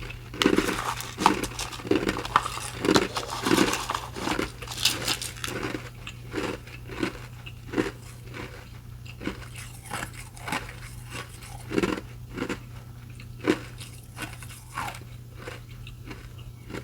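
Close-miked crunching and chewing of fast-food restaurant ice. The bites come rapidly for the first few seconds, then slow to scattered, sparser crunches.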